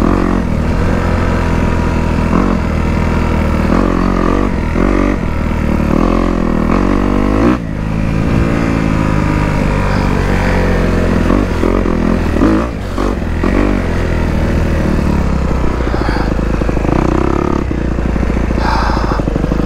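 Dirt bike engine under way, revving up and down as the throttle is worked, its pitch climbing and falling again and again. It briefly drops off about seven and a half seconds in and again a little before the thirteen-second mark.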